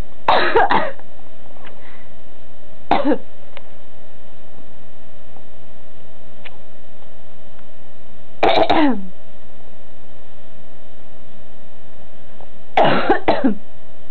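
Snow Bengal cat making short irritated chirps in four bouts, several falling in pitch. It is his reaction to being disturbed while trying to nap.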